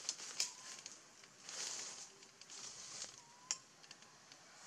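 Rustling and crackling of leaves and twigs, with scattered small clicks and a sharper click late on. Twice there is a faint short rising chirp.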